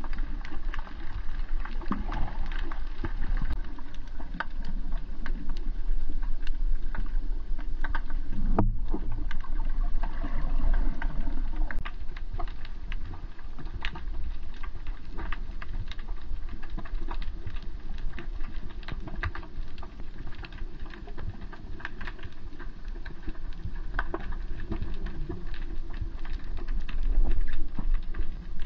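Underwater ambience recorded by a diver's camera: a dense crackle of quick clicks over a steady low rumble, briefly dropping out about nine seconds in.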